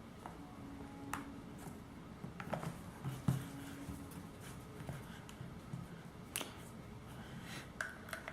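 A few faint, scattered clicks and taps from handling a power bank and plugging a USB charging cable into it and a phone.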